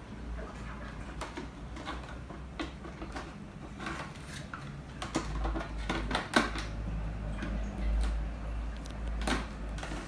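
Plastic clicks, knocks and rustles of a clear plastic bottle being handled and fitted into a Lego robot frame, with a sharp click about six seconds in, over a low rumble.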